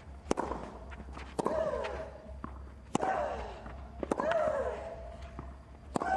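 A tennis rally: a ball struck back and forth by rackets, five sharp hits about a second and a half apart. Most hits carry a short grunt from the player that falls in pitch.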